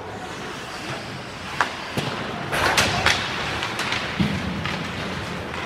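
Ice hockey play: a scattered series of sharp clacks and thuds from sticks, puck and players against the boards, bunched together about two and a half to three seconds in.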